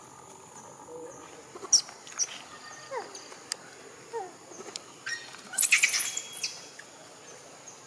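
Young macaques feeding on a coconut give a few short, falling squeaks. Sharp clicks and a burst of crackling about six seconds in come from the fibrous coconut husk being torn.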